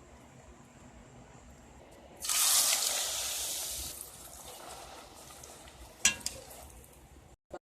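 Stretched bara dough dropped into smoking-hot oil: a sudden loud sizzle about two seconds in that settles into a softer, steady frying sizzle. A couple of sharp clicks come near the end.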